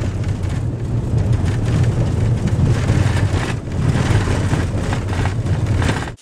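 Steady low rumble and running noise of a moving passenger vehicle, heard from inside the cabin.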